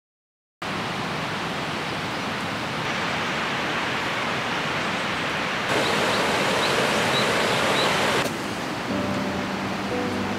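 A river rushing steadily after a brief silence, louder for a few seconds in the middle, with a few faint bird chirps. Near the end a low steady hum comes in under the water.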